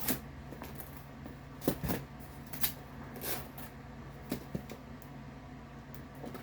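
Craft-supply packages being handled: a scattered run of light clicks and rustles, about half a dozen, as stamp and die sets are picked up and turned over.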